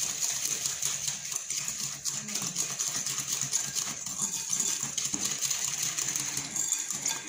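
Hand wire whisk beating eggs in a glass bowl: fast, continuous clicking and tapping of the wires against the glass.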